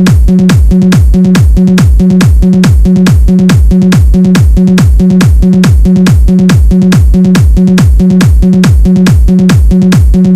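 Electronic bass-test music for a sound check's low-end test: a fast, even run of kick hits, about two and a half a second, each dropping steeply in pitch into deep bass.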